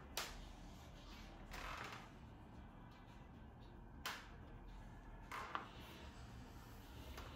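Quiet room with a faint steady hum, a few soft clicks and two brief rustles.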